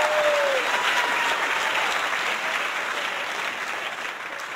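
A crowd applauding, with many hands clapping, fading out near the end.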